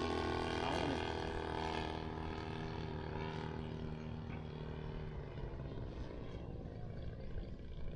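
Desert Aircraft DA-120 twin-cylinder two-stroke gas engine of a large RC model plane running steadily in flight, its drone slowly fading.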